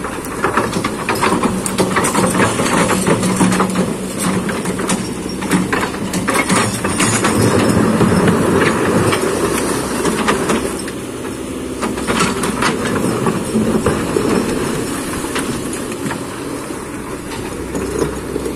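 Kobelco hydraulic excavator's diesel engine working under load, swelling louder about halfway through, with scattered knocks and clatter of stone against the steel bucket as rocks are moved.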